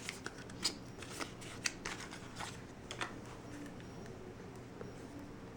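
Small clicks and rustles of a single eyeshadow's packaging being handled and opened, a handful of sharp ticks in the first three seconds, then fainter handling.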